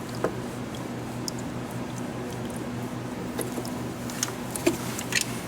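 Battery cable terminal being worked in a cup of hot coffee to loosen corrosion: scattered small clicks and wet taps, more of them in the second half, over a steady low hum.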